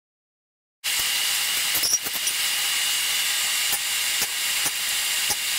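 Steady high hiss of a running forge burner, with a few faint metallic clicks, after about a second of dead silence at the start.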